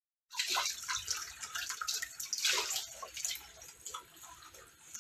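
Water running from a kitchen tap and splashing into a sink as dishes and a pot are washed, with a few light knocks of dishes; it starts suddenly about a third of a second in.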